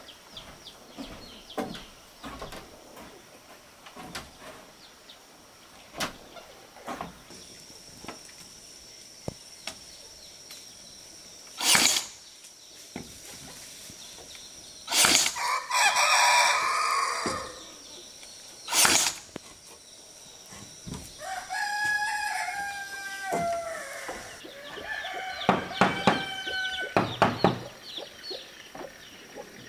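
A rooster crowing past the middle, followed by chickens clucking, over scattered knocks and taps. Before the crowing, a few loud, short bursts of noise stand out.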